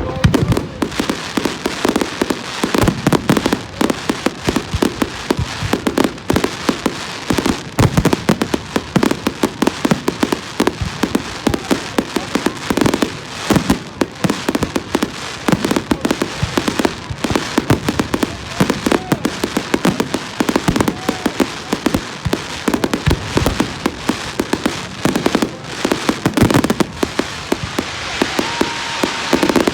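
Fireworks display in a continuous barrage: rapid, overlapping bangs and crackling reports, loud throughout.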